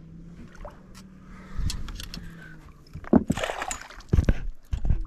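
A small bass splashing and thrashing at the surface beside the boat as it is reeled in. Over a steady low hum, a burst of splashing about three seconds in is followed by a few sharp knocks and low thumps.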